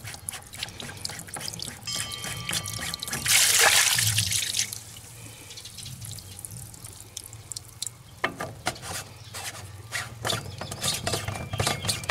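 Water draining out of a PVC first-flush rain diverter pipe through its cleanout opening: a loud rush lasting about a second and a half, starting some three seconds in. Dripping follows, then a run of light clicks near the end.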